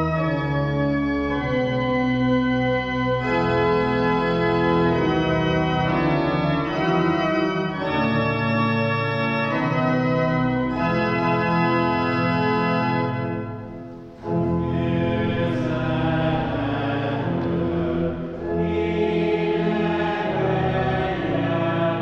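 Church organ playing closing music in sustained chords that change every second or two. It breaks off briefly about two-thirds of the way through and comes back fuller.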